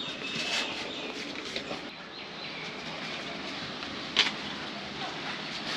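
Outdoor ambience with faint bird calls and one brief sharp click about four seconds in.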